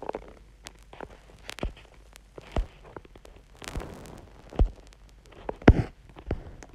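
Footsteps, slow irregular steps about once a second, with a heavier thump near the end.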